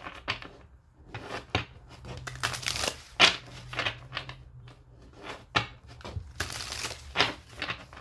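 A tarot deck being shuffled by hand and cut into piles on a wooden tabletop: a string of short, irregular card swishes and taps.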